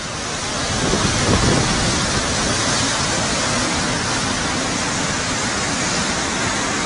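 Steady rush of fast-flowing muddy floodwater, an even noise with no distinct events. It swells over the first second, then holds level.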